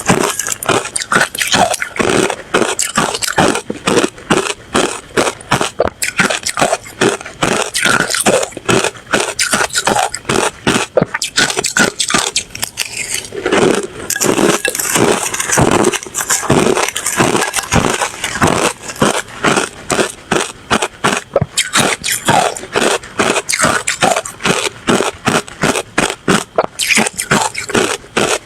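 Ice being bitten and chewed close to the microphone: loud, crisp crunches coming several times a second, with a brief lull near the middle.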